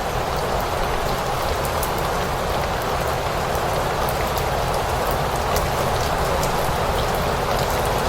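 Steady rain falling on a surface, a dense even hiss with many fine, separate drop ticks over it.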